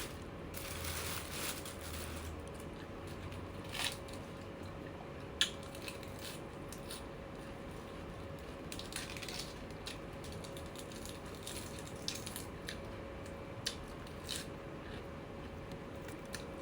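A person chewing mouthfuls of beef laab and white beef omasum (tripe), with scattered small crunches and clicks. A faint steady hum runs underneath.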